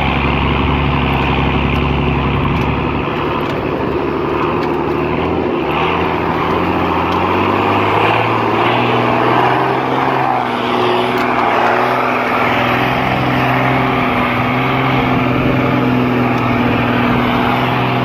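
Mercedes-Benz Unimog engine running steadily under load off-road. Its pitch climbs about six to eight seconds in and holds higher after that as the truck pushes through marsh water.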